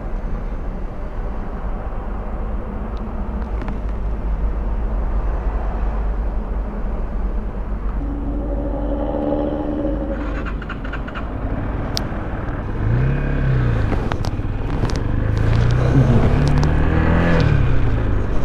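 Forte 250-cka motorcycle under way: steady engine and road rumble mixed with wind noise. In the second half the engine pitch rises and falls a couple of times.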